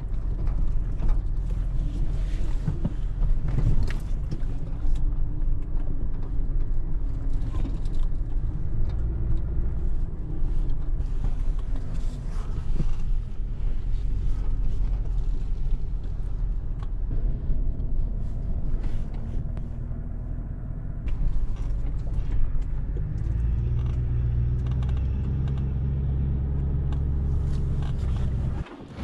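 Four-wheel-drive vehicle's engine running under light load as it drives slowly over a rough dirt track, heard from inside the cab. There is a steady low rumble whose pitch slowly rises and falls, with frequent knocks and rattles from the bumps. The sound cuts off abruptly just before the end.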